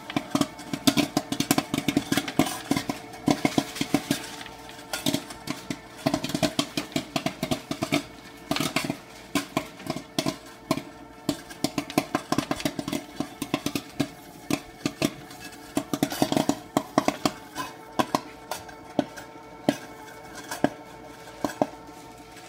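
Popcorn popping fast in the heated kettle of a Nostalgia tabletop popcorn machine: a dense, irregular stream of sharp pops, several a second, with kernels knocking against the kettle and the plastic cabinet, over a faint steady hum.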